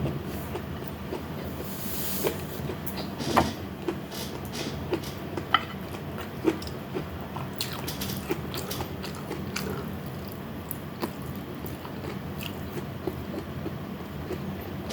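Close-miked chewing and biting of food, mukbang eating sounds, with many small wet clicks and a louder crunch about three and a half seconds in, over a steady low hum.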